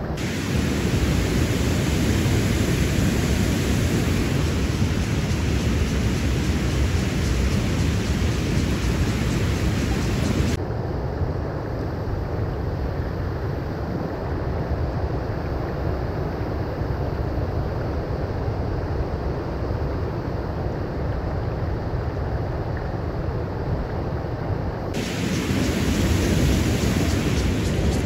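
Steady rushing of creek water, an even hiss heaviest in the low end. The brighter upper part of the hiss drops away abruptly about a third of the way in and comes back near the end.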